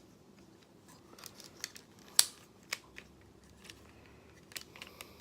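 Scattered sharp clicks and taps of a plastic transforming-robot action figure being handled, with one loud click about two seconds in.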